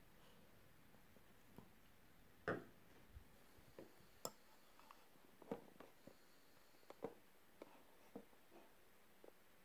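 Near silence with a handful of faint clicks and rustles from a metal crochet hook and yarn being handled, the loudest about two and a half seconds in.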